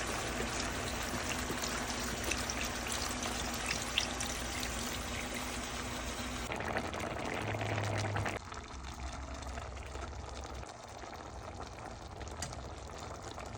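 Unsalted chicken stock being poured from a carton into a pot, a steady pour that stops abruptly about eight seconds in.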